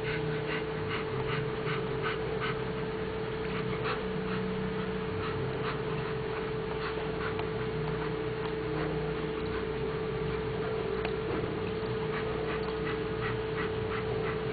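Rapid, short, high-pitched animal squeaks, several a second, coming in clusters near the start and again near the end, over a steady hum.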